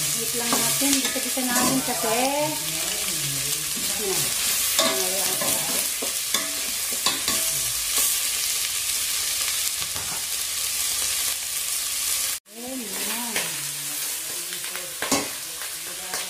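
Pork pieces sizzling as they brown in a stainless-steel pot, stirred and scraped with a metal spoon, with frequent clinks and scrapes of metal on the pot.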